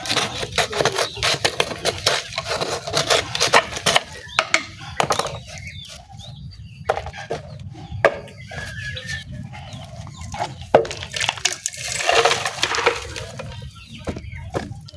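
Chickens clucking, mixed with frequent sharp clicks and knocks that are densest in the first few seconds.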